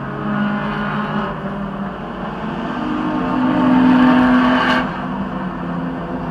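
Race car engines running past on the circuit, the engine note swelling to its loudest about four seconds in and then fading.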